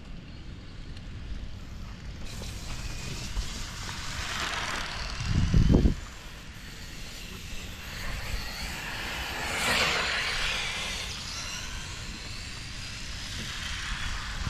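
Small electric RC F1 cars passing on the track, their motors and gears whining with pitch rising and falling as they go by, loudest about ten seconds in. A brief low rumble about five seconds in.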